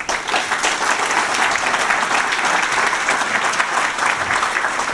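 Audience applauding: many hands clapping in a dense, steady wash.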